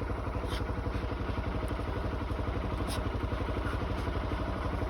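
An engine idling steadily with an even, rapid pulse, with a couple of faint ticks over it.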